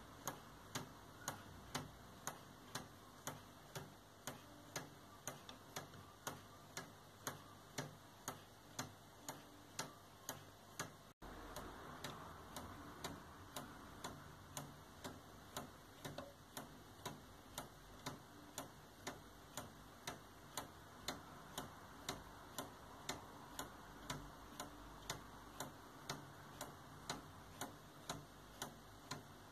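Wooden escapement of a spring-wound Robotime plywood pendulum clock ticking evenly, about two sharp ticks a second, as its escape wheel and anchor run properly.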